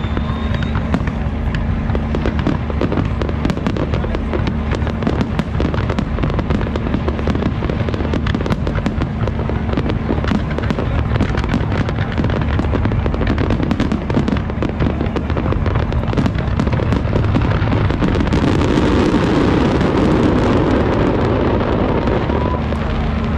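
Fireworks display: a dense, continuous barrage of rapid bangs and crackles from bursting aerial shells, over a steady low rumble, building to its loudest about three-quarters of the way through.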